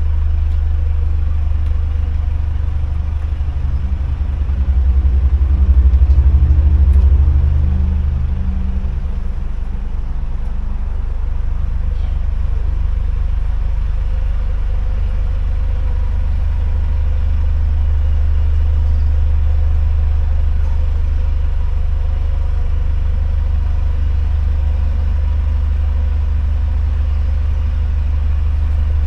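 Narrowboat's diesel engine running with a steady low throb; it grows louder for a few seconds about five seconds in, then settles back to a steady run.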